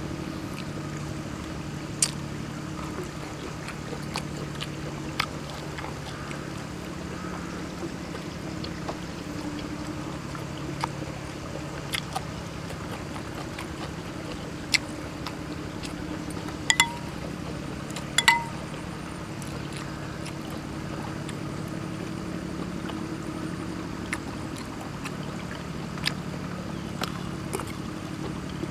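Eating at a table: scattered sharp clicks and a few short ringing clinks of a metal spoon against a bowl and glass, with mouth and chewing sounds, over a steady low hum.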